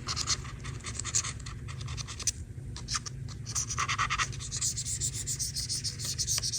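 Rapid, irregular scratching strokes of a tool scrubbing caked grime from around an iPad's power button, in quick runs with brief pauses.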